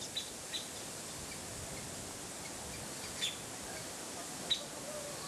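Outdoor rural ambience: a steady high hiss with a few short bird chirps scattered through.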